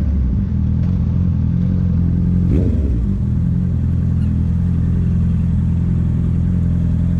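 Honda CB650F inline four-cylinder engine idling steadily through an aftermarket Jeskap sport exhaust.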